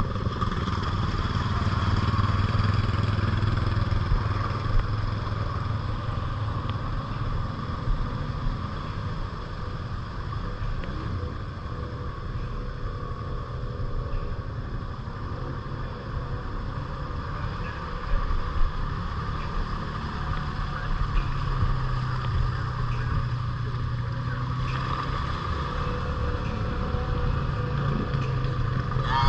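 ATV engine running steadily under way, with a few brief knocks.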